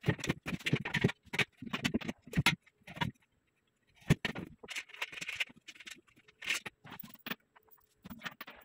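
Irregular knocks, clicks and scrapes of a metal bed frame's rails and hardware being handled and fitted together, with a short quiet gap about three seconds in.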